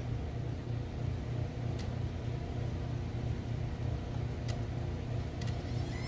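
Steady low hum under the hood with a few short sharp clicks as the faulty camshaft position sensor of a 2014 Nissan Altima is tapped by hand; each tap briefly wakes the sensor's signal.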